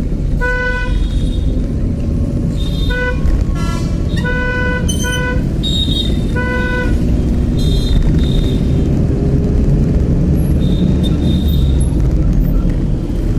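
A car horn honking five short times over the first seven seconds or so, above the steady low rumble of the car driving, heard from inside the cabin.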